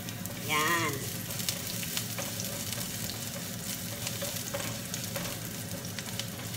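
Garlic sautéing in a hot pan: a steady sizzle with scattered small crackles.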